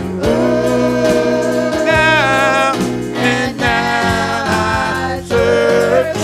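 Gospel praise team and congregation singing long held "ooh" notes over instrumental accompaniment, the voices moving to new notes about two seconds in and again twice more.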